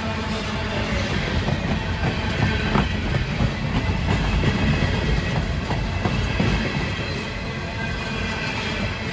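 Empty CSX coal cars rolling past close by: a steady rumble of steel wheels on rail, with clickety-clack over the rail joints.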